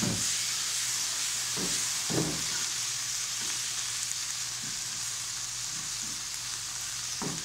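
Pickled mustard greens sizzling in hot oil in a wok as they are stir-fried: a steady frying hiss, with the spatula scraping the pan a few times.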